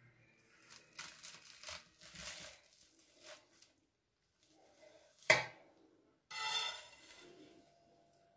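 A knife cutting through a baked puff-pastry roll, the crisp flaky crust crackling and tearing in several short bursts. A single sharp knock a little over five seconds in is the loudest sound.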